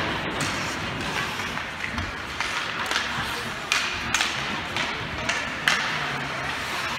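A handful of sharp knocks and thuds from play in a stick game, spaced a second or more apart, over a steady murmur of spectators.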